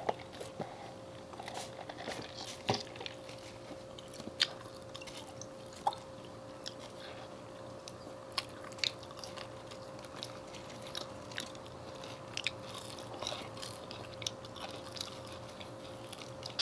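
Close-miked eating of cold, stiffened KFC French fries: chewing and biting with scattered sharp little clicks at irregular intervals. A faint steady hum runs underneath.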